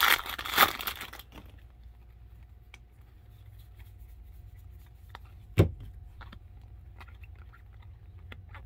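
Baseball card pack wrapper crinkling and tearing as the pack is pulled open during the first second, then faint soft clicks of the cards being shuffled through by hand, with one sharp knock about five and a half seconds in.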